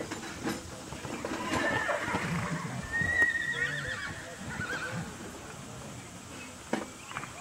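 A horse whinnying: one long high call that begins about a second and a half in, holds a wavering pitch, then trembles downward and fades out around five seconds. A single sharp knock near the end.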